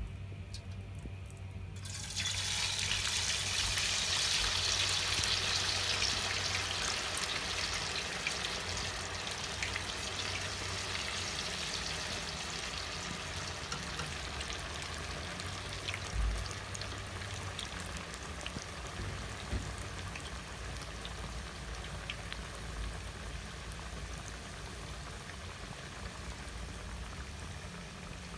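Raw potato fries going into hot oil in a steel pot: the oil bursts into a sizzle about two seconds in, loudest at first, then settles into a steady frying hiss that slowly softens as the fries cook.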